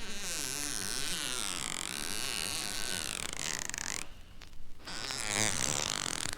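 Spooky sound effect of a raspy, buzzy, warbling noise whose pitch wavers up and down, breaking off briefly about four seconds in before resuming.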